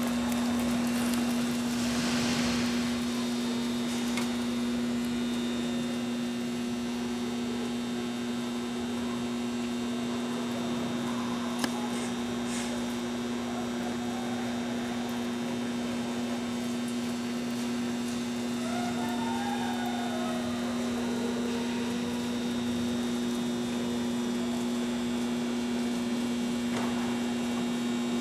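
Steady electrical hum, one unchanging low tone with a fainter one above it, over a constant background hiss. A few faint, indistinct wavering sounds come in about two-thirds of the way through.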